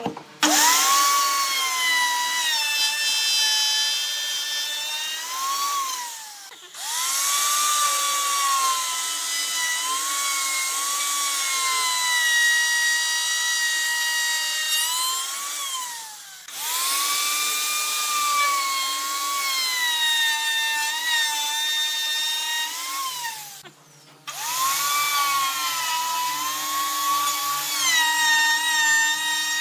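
DongCheng plunge router running with its bit cutting slots into pine frame rails: a loud high whine that sags in pitch as the bit bites into the wood and climbs again as it runs free. It is broken three times by short gaps.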